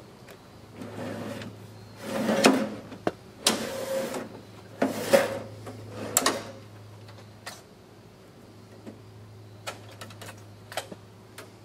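Sheet-metal picture-monitor chassis of an RCA TR-70B quadruplex recorder being pulled out on its slide rails and tilted down: several loud metallic scraping rattles in the first six seconds or so, then scattered light clicks and knocks. A faint steady low hum runs underneath.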